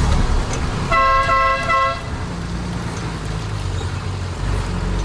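A vehicle horn sounds once for about a second, followed by the low, steady running of a vehicle engine.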